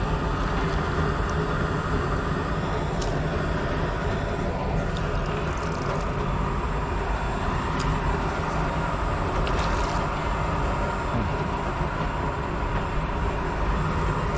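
Steady rumbling outdoor noise with a few brief faint clicks.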